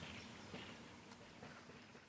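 Near silence: faint outdoor ambience with a few faint short chirps and ticks, and no siren sounding.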